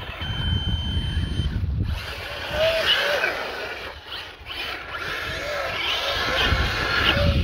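Radio-controlled buggy running, its motor giving a high steady whine over the noise of its tyres, with wind rumbling on the microphone.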